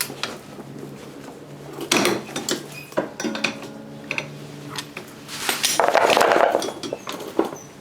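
Metal tools and scooter parts clinking and knocking in a series of separate hits, with a longer rattling clatter about six seconds in.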